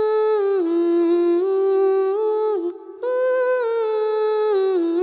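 End-credits music: a single melody of held notes that slide from one pitch to the next, in two phrases with a short break a little past halfway.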